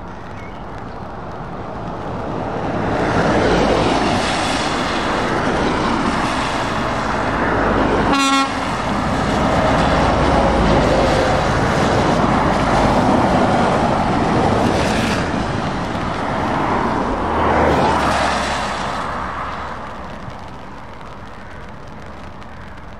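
Heavy trucks driving past one after another on a wet road, engine noise and tyre hiss swelling as each passes and fading near the end. About eight seconds in, a short horn blast sounds.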